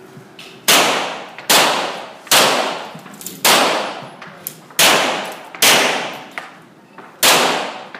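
A pistol firing seven shots at an uneven pace, each sharp crack followed by a long echo in the indoor range hall.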